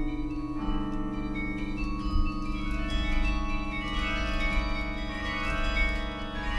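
Bronze carillon bells played from the baton keyboard, ringing a slow passage of long, overlapping notes. A low bell rings throughout, another low note joins about half a second in, and higher bells sound over them.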